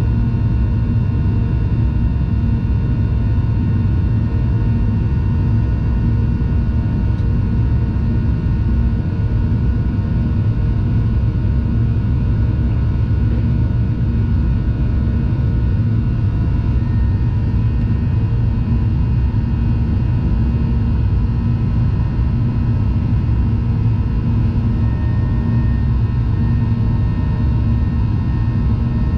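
Jet airliner heard from inside the passenger cabin in flight: engines and airflow make a steady low rumble, with faint steady tones above it.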